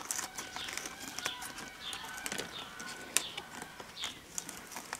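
Kitchen scissors snipping along the edge of milk thistle leaves: a series of crisp cuts with leaf rustle, the sharpest about three seconds in. Birds chirp repeatedly in the background.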